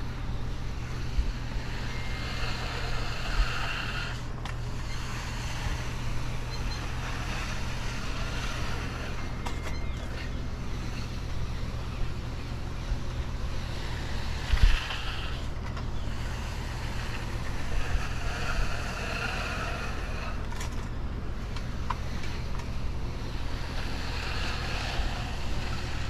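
Bull float sliding over fresh, wet concrete, a soft scraping swish with each push and pull, returning every few seconds, over a steady low engine hum. A single thump about halfway through.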